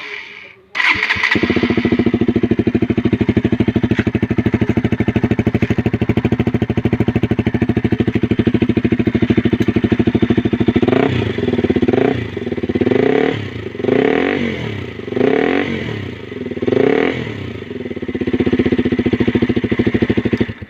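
KTM RC200's single-cylinder four-stroke engine, exhaust open with no silencer, cranking and catching about a second in, idling steadily, then blipped up through a series of quick revs before settling back and cutting off near the end.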